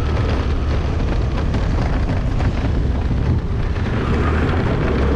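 Wind buffeting the microphone of a moving scooter: a steady, loud low rumble, with the scooter's engine and road noise mixed in.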